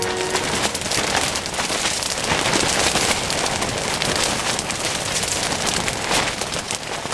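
Rain pattering steadily on a tent's fabric, heard from inside the tent as a dense, even hiss of many small drop hits.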